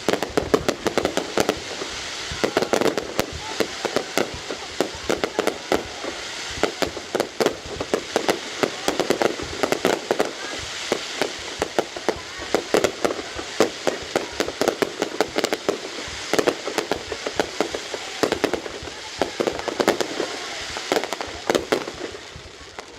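Fireworks display going off in a rapid, dense barrage of bangs and crackles, several a second, thinning slightly near the end.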